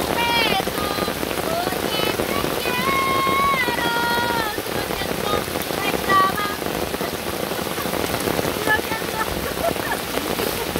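Steady rain falling, with a few short high-pitched calls, voice-like, in the first half.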